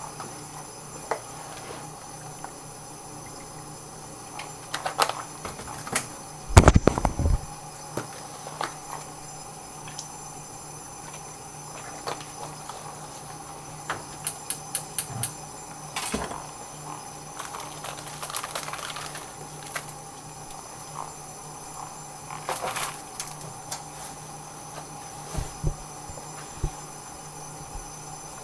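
Intermittent kitchen handling noises over a steady background hum: scattered knocks, clicks and clatter, with a heavy cluster of thuds about seven seconds in.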